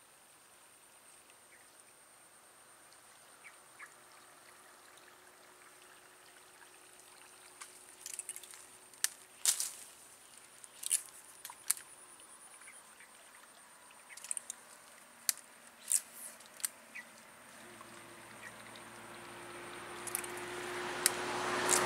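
Topwater frog lure being twitched across a weedy canal, with a run of sharp clicks and small splashes, then water splashing that builds near the end as a fish strikes at the lure.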